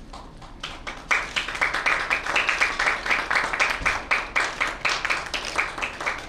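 An audience applauding: scattered claps starting about half a second in, building into dense, steady clapping.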